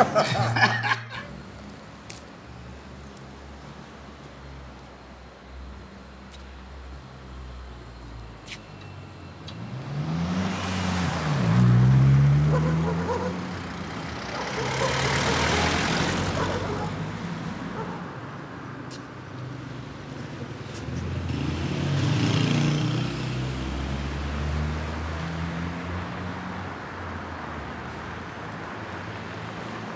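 Road traffic: cars passing one after another over a steady low rumble, the first with its engine audibly accelerating about a third of the way in, others passing around the middle and about three quarters through.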